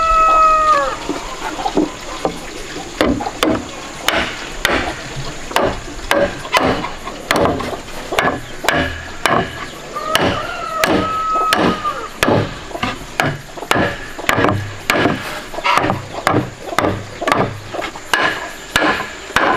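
Wood knocking on wood, about two knocks a second: wall planks being driven down into the grooves of wooden posts. A bird calls briefly at the start and again about halfway through.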